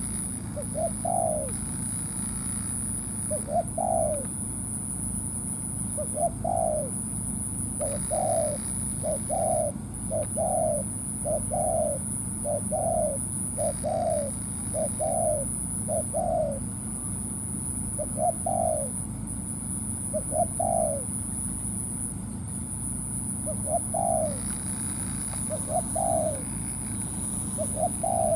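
Spotted dove cooing: a run of short rising coo notes, about one a second through the middle and more spaced out at the start and end, over a steady high-pitched whine.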